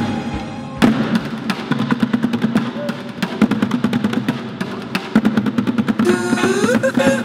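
Street drummers playing fast, dense rhythms with drumsticks on upturned plastic buckets. Near the end a gliding melody comes in over the drumming.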